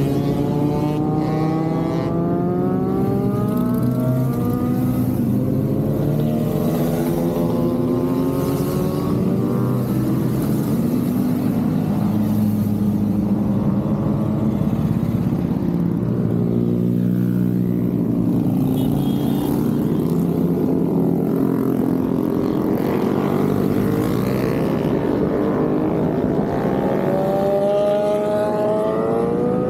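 A continuous stream of motorcycles riding past, many engines overlapping, their pitches sliding up and down as bikes come and go.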